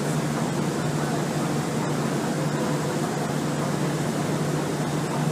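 Motor ship's engines running: a steady drone with a constant low hum.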